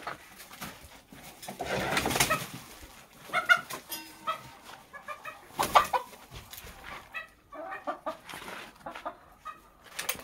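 Chickens clucking in runs of short, quick notes, with a couple of louder, harsher bursts about two and six seconds in.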